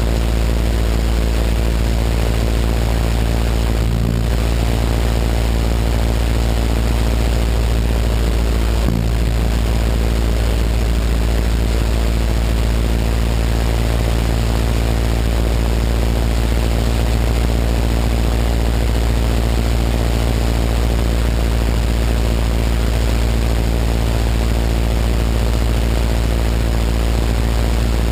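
Biplane's piston engine and propeller running steadily in cruise flight, an unchanging drone with air rushing past.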